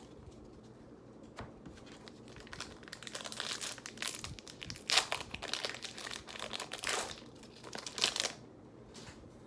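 Pokémon card pack packaging crinkling and tearing as a pack is opened by hand: a run of crackling rustles starting a couple of seconds in, with the sharpest crackles in the middle and near the end.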